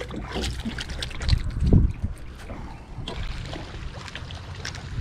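Water splashing and dripping beside a small aluminium boat, with scattered light clicks and two low thumps about one and a half seconds in.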